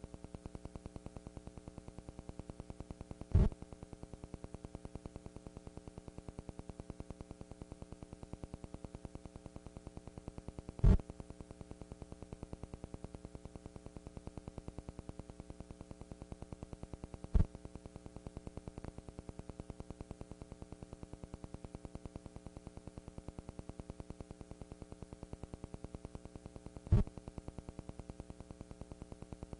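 Steady electrical hum with static on an old recording, pulsing rapidly and evenly, broken by four sharp clicks several seconds apart. No band music stands out.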